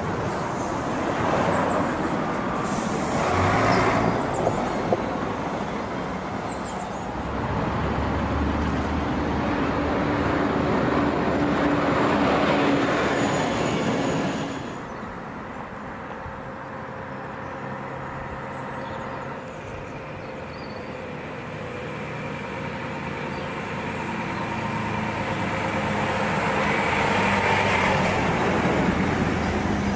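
Bus engines running and moving off, with a short hiss of air brakes a few seconds in. The engine sound drops suddenly about halfway through, then builds again toward the end.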